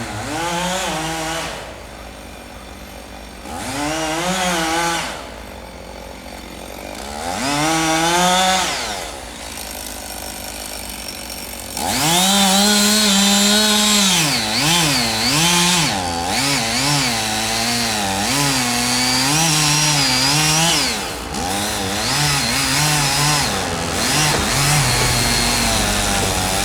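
Two-stroke chainsaw revving up in three short bursts and dropping back to a low idle between them, then held at high revs for the rest of the time, its pitch repeatedly dipping and recovering as it cuts wood.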